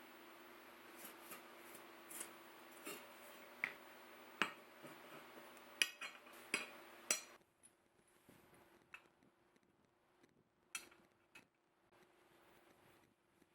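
Faint, scattered clinks and knocks of hard objects being handled on a workbench, over a steady low hum that cuts off about seven seconds in.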